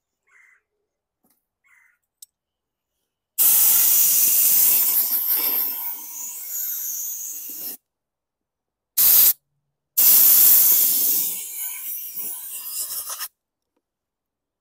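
Compressed-air blow gun blasting air into a lawn mower's plastic fuel tank to blow it out: a long hissing blast, a short burst, then another long blast.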